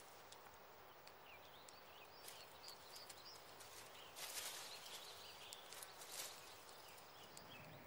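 Faint forest ambience with small, high bird chirps and a few light clicks, and a brief rustle of dry leaves and twigs a little past halfway.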